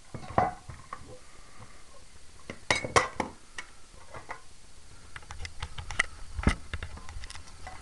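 Handling noise: scattered light clicks and knocks, a few louder ones about three seconds in and again near six seconds, as the opened CB radio and camera are moved around to its other side.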